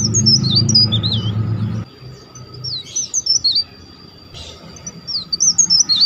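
A tralis bird singing short phrases of quick, curling whistled notes that rise and fall, three bursts a couple of seconds apart. A loud low hum runs under the first two seconds and cuts off suddenly.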